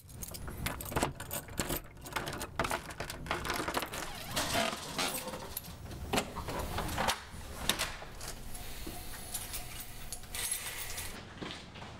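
A bunch of keys jangling and clicking at a doorknob lock: a long run of small metallic clicks and rattles over a low steady rumble.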